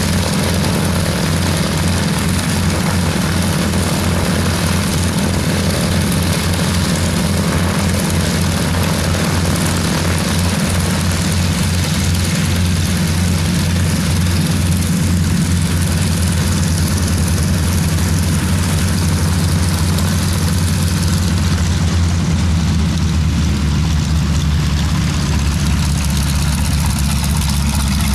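Nine-cylinder radial engines of North American AT-6D Texan trainers idling on the ground with their propellers turning, a loud, low, uneven pulsing drone that grows steadier in the second half.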